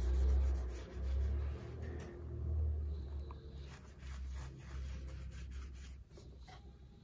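Paper tissue rubbing and wiping over a glazed ceramic bowl in short scratchy strokes, over a low rumble that swells and fades as the bowl is handled on the cloth-covered table, loudest in the first three seconds.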